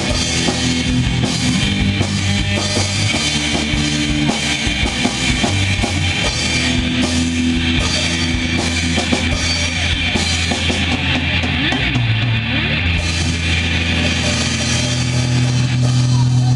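Live rock band music: a drum kit with kick drum and cymbals played over sustained bass notes and guitar. The cymbals drop out for about a second past the middle.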